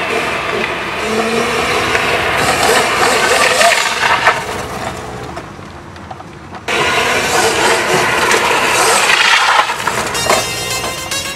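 Dubbed-in vehicle engine sound effect running hard as the souped-up electric mobility scooter speeds along. It fades about halfway through and cuts back in suddenly, and music comes in near the end.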